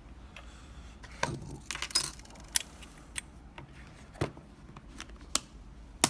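Small metal parts and tools being handled: scattered sharp clicks and clinks, about half a dozen, as the dimple-lock cylinder and tools are set down and picked up.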